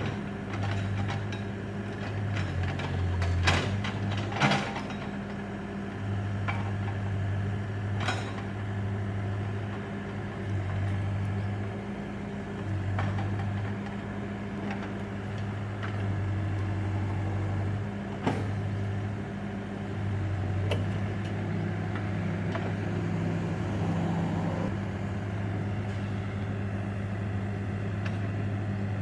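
Backhoe engine running steadily, its note shifting a little now and then as the load changes, with occasional sharp knocks, the loudest a few seconds in.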